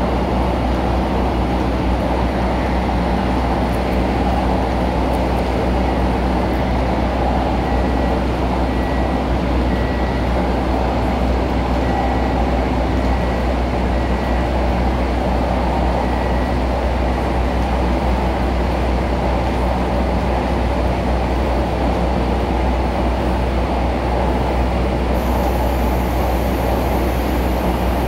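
MTR Tung Chung line A-train electric multiple unit heard from inside the car while running: a steady rumble of wheels on rail with the hum of the traction motors.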